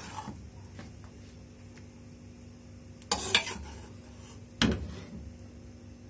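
Metal spoon knocking and scraping against a stainless steel pot while a paste is spooned out and spread in a layer over rice: a few separate clinks, two close together about three seconds in and another about a second and a half later.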